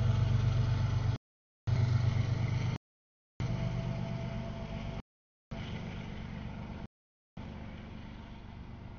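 CSX double-stack freight train rolling past a grade crossing. A deep rumble, strongest early on, fades steadily as the lead diesel locomotive moves off and the stack cars and trailers go by. The audio drops out completely for about half a second roughly every one and a half seconds.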